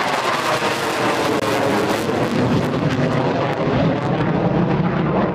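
Jet aircraft engine sound: a loud, steady rushing noise whose pitch sweeps slowly.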